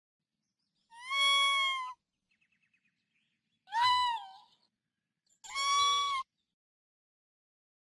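Raccoon calling: three high, arching cries, each under a second long and cut off sharply, with pauses between. A short run of faint ticks comes between the first and second cry.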